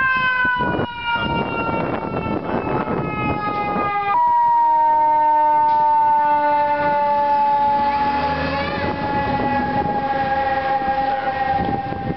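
Fire engine siren wailing, its pitch falling slowly; it steps up once about four seconds in, then falls slowly again.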